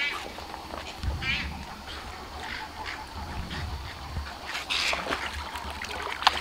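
Short croaking animal calls, one at the start and another about a second in, over a low steady rumble.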